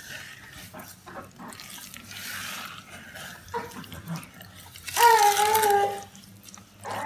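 Wooden spoon stirring a wet, sandy mix of sugar, glucose syrup and water in a stainless steel saucepan. About five seconds in, a young child's voice cries out once for about a second, louder than the stirring.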